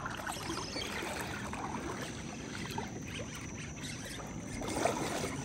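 Water sloshing and trickling in a steady, uneven wash, with a brief louder splash-like sound near the end.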